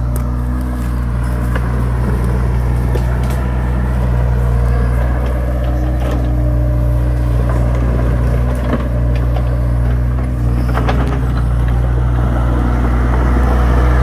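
Hyundai HX60A mini excavator's diesel engine running with a steady low hum, getting slightly louder near the end, with a few faint knocks over it.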